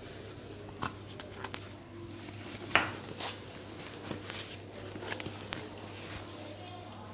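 Hands working over fabric trousers and bodies shifting on a foam exercise mat during an assisted leg stretch: soft rustling with a few short sharp clicks, the loudest about three seconds in, over a steady low hum.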